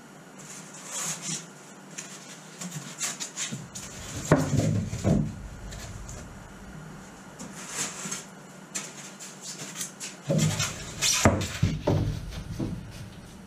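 Foam flotation blocks and a birch plywood piece being shifted and pushed into place inside a wooden rowboat's hull: scraping, rubbing and knocks against the wood. It is loudest about four seconds in and again from about ten to twelve seconds in.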